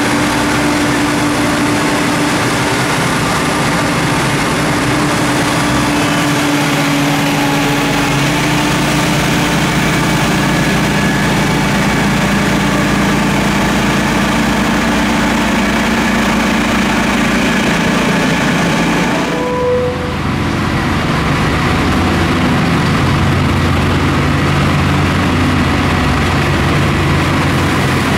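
Diesel engine and rotary snow blower of a rail-mounted subway snow-thrower car, running steadily as it blasts snow off the track. The sound changes abruptly after a brief dip about two-thirds of the way through.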